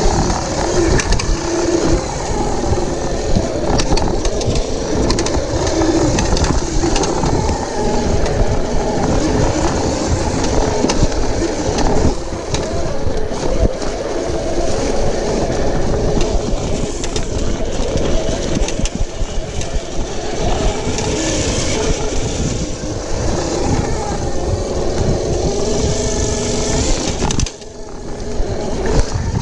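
OSET 24 electric trials bike ridden fast over a rough dirt singletrack: the motor's whine rising and falling with speed over the rattle of the bike and its tyres on dirt, with wind rumbling on the camera microphone. The noise dips briefly near the end.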